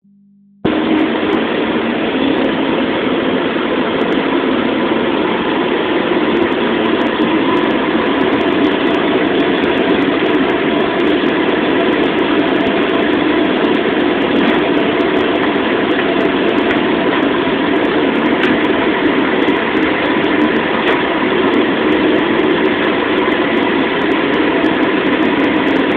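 Steady roar of a commercial wok range on high, its gas burner and exhaust fan running, as a bare carbon steel wok is heated dry for seasoning. The roar starts about half a second in.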